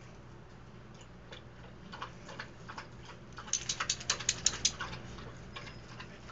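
Clicking and tapping as two dogs tussle over a plastic bucket: scattered sharp clicks that pick up into a quick run of about ten a second around the middle, then thin out.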